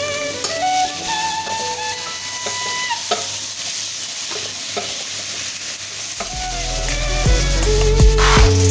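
Beef frying in a pot, sizzling as it is stirred, with a few short knocks of the spoon. Background music with a melody plays over it, and a bass line comes in about six seconds in.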